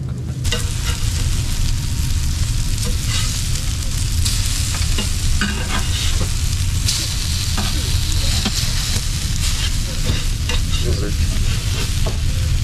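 Trout sizzling as it cooks on a barbecue, a steady frying hiss that starts abruptly about half a second in, with scattered clicks and scrapes of a cooking utensil.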